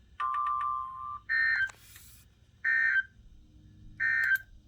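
Weather-radio alert data tones: a steady beep of about a second, then three short, shrill bursts of digital data squawk about 1.3 s apart. This is the SAME end-of-message code that closes a NOAA Weather Radio warning.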